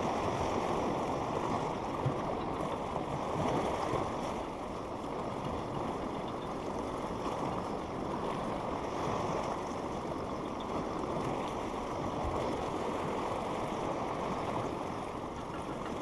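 Choppy sea water washing and foaming against the base of a pier: a steady rushing wash that swells and eases a little.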